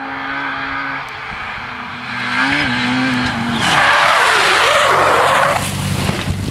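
Rally hatchback's small petrol engine holding a steady note, then revving higher about two seconds in. About four seconds in comes a loud rushing noise for about two seconds as the car slides off the road onto grass and dirt, tyres skidding and throwing up dust. The engine is heard again near the end.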